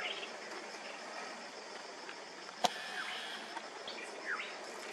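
Roadside jungle ambience: a steady, evenly pulsing insect chirr with short bird chirps over a background hiss, and one sharp click about two and a half seconds in.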